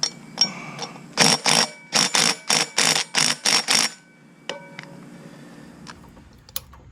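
Hand tools working metal bolts on a mini bike frame: a run of about ten quick rasping strokes at roughly four a second, then a clink of metal that rings briefly.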